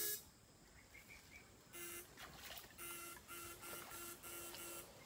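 Homemade backpack electrofishing shocker buzzing in short, regular electronic pulses, about two a second, as current is sent into the water through its poles. It is quiet for the first second or so, then the pulsing starts up.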